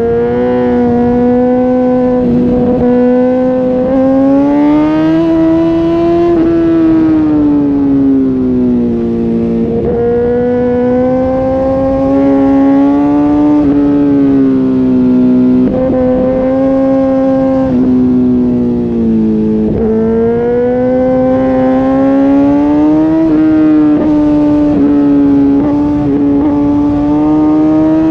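Sport motorcycle's engine and exhaust heard while riding at speed: a loud, strong engine note that climbs slowly and then falls away several times as the bike speeds up and eases off, with a few sudden drops in pitch.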